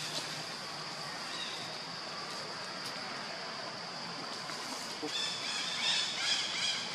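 A baby macaque screaming in short high-pitched cries from about five seconds in, over a steady high hiss.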